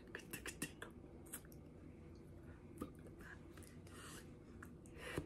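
Faint clicks, taps and rustles of hands meeting and brushing while signing, with soft mouth clicks, over a low steady hum; a slightly louder tap and rustle comes near the end.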